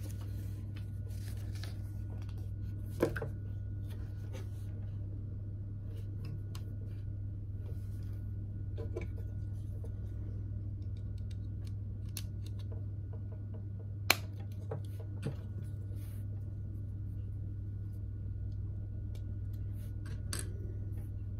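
Plastic LEGO pieces being handled and pressed together: scattered small clicks and rustles, with one sharp click about two thirds of the way through, over a steady low hum.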